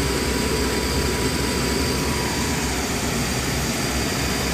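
Steady mechanical hum and rush of air in a jet cockpit, with a faint steady high whine over it.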